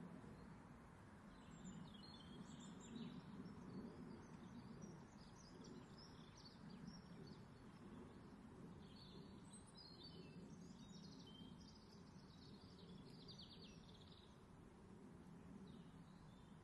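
Faint birds chirping in many short calls over a low, steady background hum.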